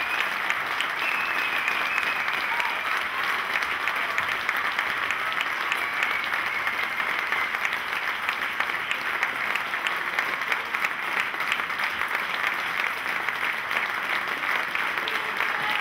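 Audience applauding steadily: dense, even clapping of many hands.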